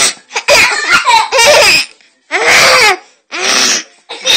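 A young girl making drawn-out vocal noises, three long ones, the middle two falling in pitch, then short choppy laughter near the end.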